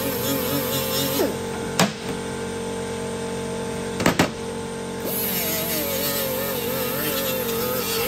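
Air-powered die grinder with a gasket-removal pad scrubbing old gasket off an aluminium sump face, its whine wavering in pitch as it is pressed, with air hiss. It stops about a second in, and there is a sharp knock near two seconds and a double knock near four. It starts up again about five seconds in.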